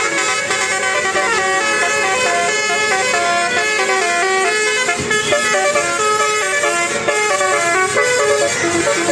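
Basuri telolet bus horn playing a fast melody of stepped horn notes, each held a fraction of a second, without a break.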